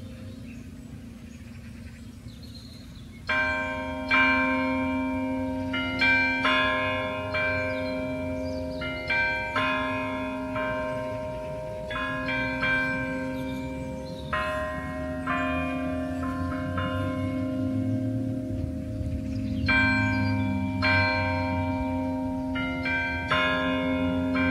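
Carillon bells playing a slow melody based on a Ukrainian folk tune, one struck note after another, with each bell ringing on under the next. After a few seconds of fading ringing the notes start about three seconds in, pause briefly about three-quarters of the way through, then carry on.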